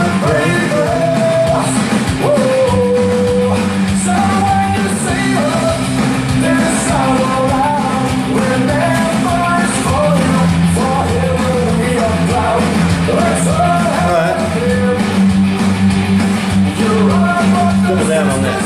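Music playing: a rock song with singing over guitar and band backing.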